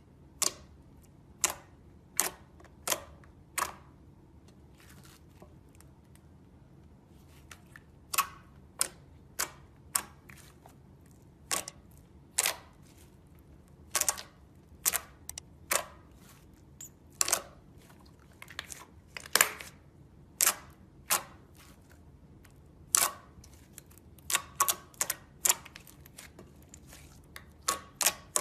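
Slime being squeezed and pressed by hand, giving a series of sharp pops and clicks as trapped air bursts, at an irregular pace with some quick clusters.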